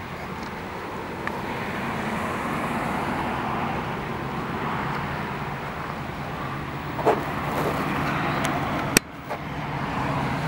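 Diesel freight locomotive approaching: a steady low engine hum and rumble that slowly grows louder. There is a sharp click about nine seconds in, after which the sound briefly drops.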